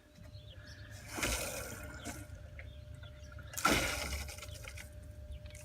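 Water gushing and splashing in two short spurts, about a second in and again near four seconds, over a faint steady hum.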